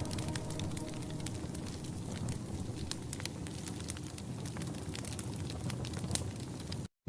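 Wood fire crackling in a fireplace: a steady low hiss with frequent sharp pops and snaps. The sound cuts out completely for a moment just before the end.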